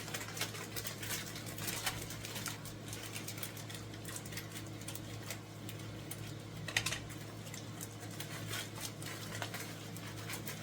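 Vegetables sautéing in oil in a skillet: a steady crackling sizzle of small pops, with one louder clack about seven seconds in.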